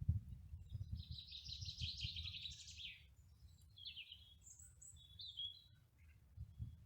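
Wild songbirds singing: a fast run of notes for about two seconds, then shorter chirps and a couple of thin notes, over a low, uneven rumble.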